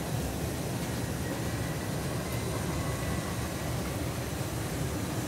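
Lionel Santa Fe model passenger train running on the layout's track: a steady low rumble of wheels and motor.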